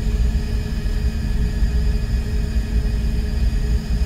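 A steady low rumble with a faint constant hum.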